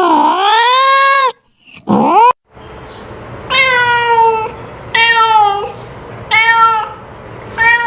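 Cat meowing: a long drawn-out meow that ends about a second in and a short one, then, over a different background, four shorter meows at an even pace, each falling in pitch at its end.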